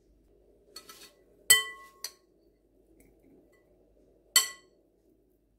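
A glass bowl clinking against a glass baking dish as cottage-cheese filling is tipped out of it. There are two ringing clinks about three seconds apart, the first followed closely by a lighter tap.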